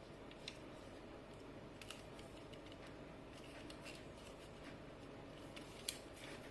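Faint room tone broken by a few light, sharp clicks: about half a second in, near two seconds and near six seconds. These are the clicks of small plastic toy parts being handled.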